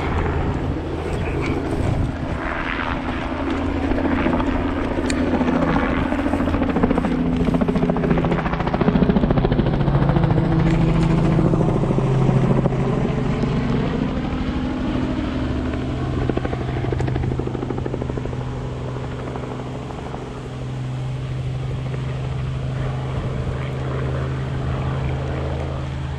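A steady engine drone that swells to its loudest around the middle and then eases off.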